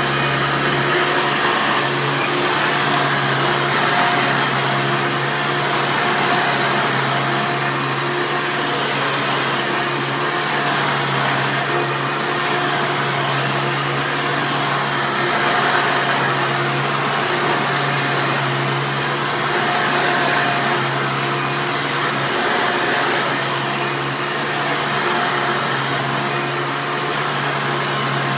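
1996 Hoover Runabout upright vacuum cleaner running steadily: a constant motor hum under a broad airflow hiss.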